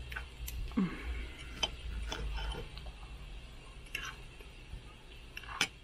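Knife and fork clicking and scraping on a plate while cutting a grilled ribeye steak: a handful of scattered light clicks over a low steady rumble.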